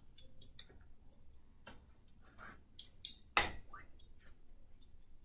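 Aluminium forearm crutches clicking and tapping at irregular intervals as a person in leg braces walks slowly with a four-point gait. The loudest click comes about three and a half seconds in.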